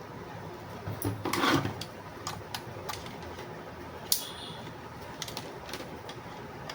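Handling noise: scattered light clicks and knocks, a short rustle about a second in and a sharp click about four seconds in.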